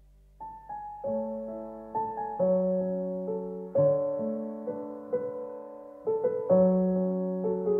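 Gentle background piano music that enters about half a second in, with single notes and then chords that are struck and left to fade.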